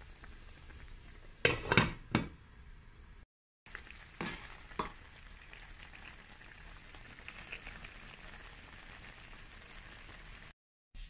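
Pot of mustard-green and pork soup heating toward the boil, a steady low hiss of simmering. A few loud knocks come about two seconds in and two more around four to five seconds, and the sound drops out briefly twice.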